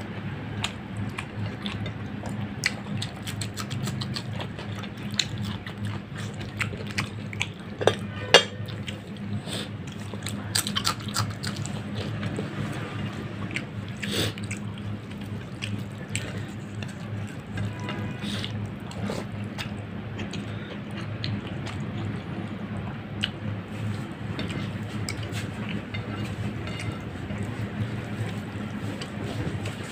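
Bare fingers squishing and mixing rice with fish curry gravy on a plate: a steady run of wet, sticky clicks and squelches, mixed with chewing and lip smacks, a couple of sharper clicks about eight seconds in. A steady low hum runs underneath.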